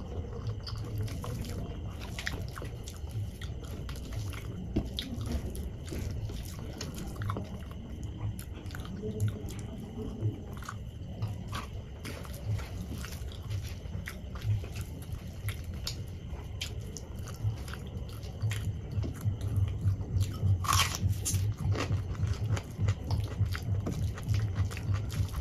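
Close-miked eating: wet chewing and mouth clicks on a mouthful of soft khichdi, with fingers squishing and mixing rice on a steel plate. A single louder crackle comes about three-quarters of the way through.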